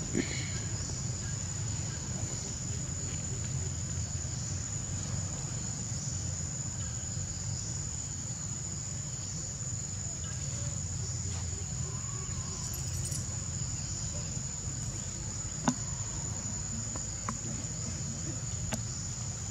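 Insects calling: one steady, unbroken high-pitched drone over a low steady rumble, with a few sharp clicks, the loudest about three-quarters of the way through.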